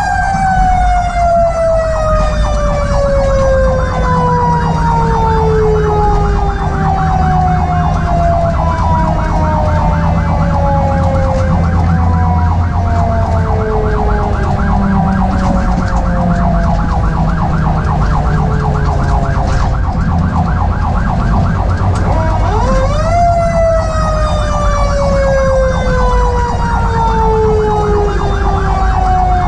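Federal Q mechanical siren on a 2021 Spartan Metro Star fire engine's front bumper, coasting down in one long falling wail, spun back up briefly about 23 seconds in and winding down again. The truck's engine and road noise rumble underneath.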